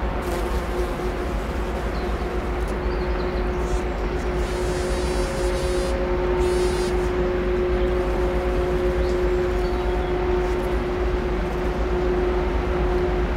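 Steady drone of the container ship HMM Algeciras passing close by: a few held humming tones from its machinery over a low rumble. A fly buzzes near the microphone twice, briefly, about four and a half and six and a half seconds in.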